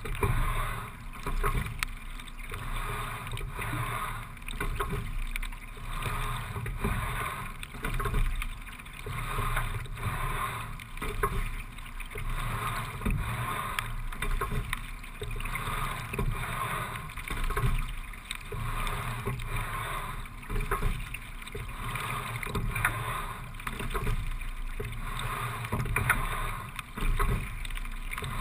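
Single scull being rowed at a steady low rate of 17–18 strokes a minute: water rushing past the hull, with oar and rigging clicks and knocks, swelling and easing once per stroke, about every three and a half seconds.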